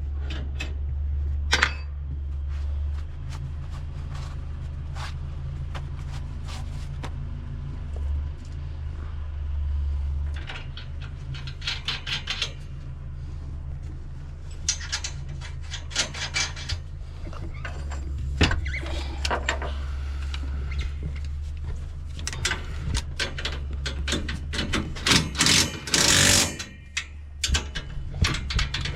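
Scattered metal knocks and clanks from hand work on combine parts, thickest in the second half, over a steady low hum.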